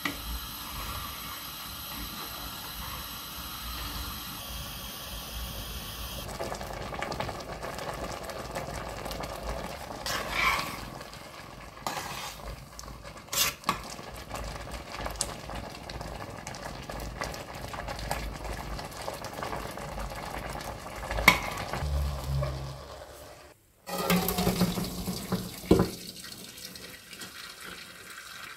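Rice simmering in a large stainless steel pot while a metal spoon stirs it, with a few sharp clinks of the spoon against the pot. Near the end, the parboiled rice and its water are poured from the pot into a metal colander in the sink to drain.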